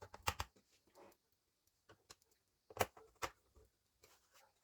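Faint clicks and taps of a small Phillips screwdriver and screws against a laptop's bottom cover while the screws are fitted: a quick cluster at the start, then two sharper clicks about three seconds in.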